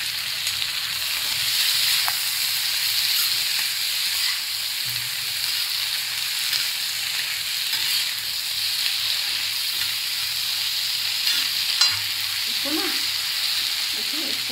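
Onions and oil sizzling steadily on a hot tawa while being stirred, with a couple of sharp clicks, one about two seconds in and one near the end.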